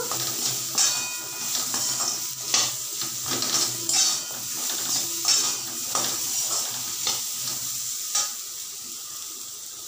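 Slotted steel spoon stirring and scraping raw mango pieces around a steel kadhai as they fry in mustard oil with spices, with a steady sizzle. The stirring strokes come about once a second and stop near the end, leaving a quieter sizzle.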